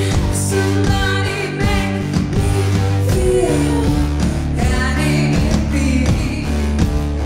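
A band playing live: a steady drum beat, bass and guitar, with a singer's voice over them.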